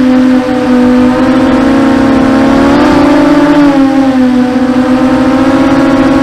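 Brushless motors and propellers of a 250-size racing quadcopter whining steadily, the pitch rising briefly about three seconds in as the throttle is raised, then settling back.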